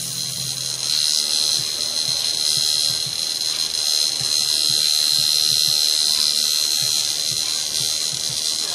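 Electric tattoo machine buzzing steadily while it inks a chest tattoo.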